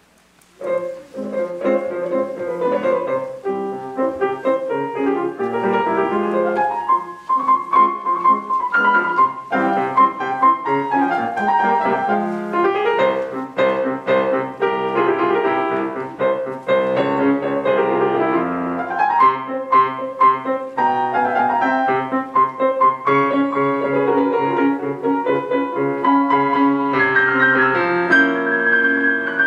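Solo piano playing a classical-style piece.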